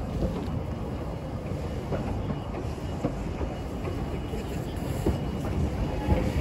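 Narrow-gauge passenger cars rolling slowly by, their wheels rumbling on the rails with a few faint clicks over the rail joints.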